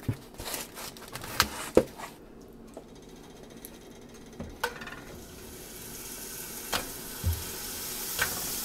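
Raw beef burger patties starting to sizzle in a hot cast-iron skillet, the hiss building up steadily over the second half, with a few knocks and clicks of handling in the first seconds.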